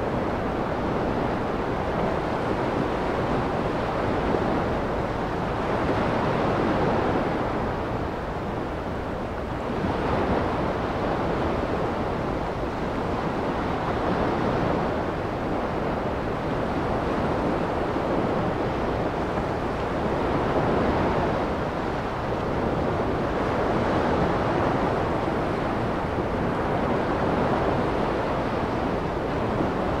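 Small ocean waves washing onto a sandy beach: a continuous surf wash that swells and eases every few seconds as each wave breaks and runs up the sand.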